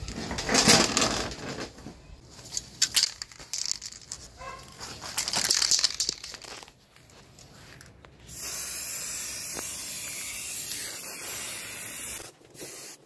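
Aerosol spray-paint can: several short hissing bursts in the first half, then a steady spray hiss of about four seconds near the end as paint goes onto a motorcycle wheel.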